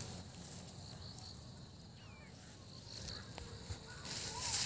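Faint insect chirping, with a rustle of dry rice straw underfoot near the end.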